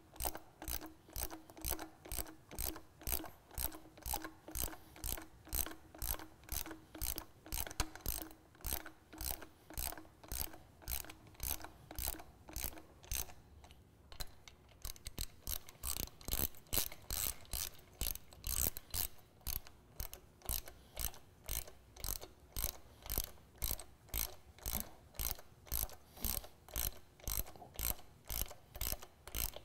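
Hand socket ratchet clicking steadily, about three clicks a second, as it runs down the intake elbow nuts with a 13 mm deep-well socket. There is a short break in the clicking around the middle.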